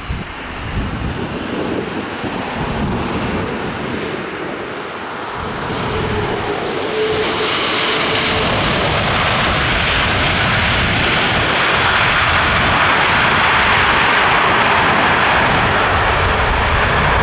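Airplane engines running at high power, the noise building over several seconds and then holding loud and steady.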